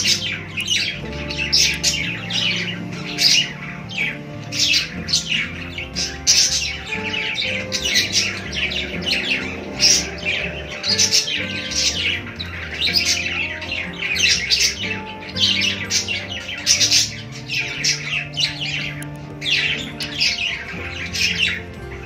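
A cage of pet budgerigars chirping and chattering nonstop, many quick overlapping calls, over soft background music.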